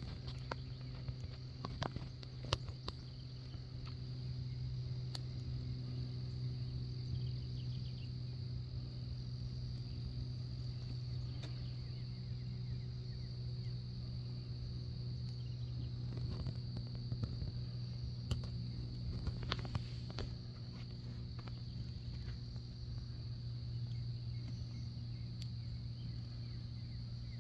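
Steady high-pitched insect trill, with a steady low hum underneath and scattered light clicks and ticks.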